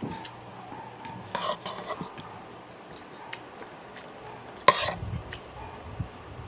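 Eating at the table: light clinks and rustles as food is picked from a plate by hand, with one sharp knock against the dish about two-thirds of the way through, over a faint steady hum.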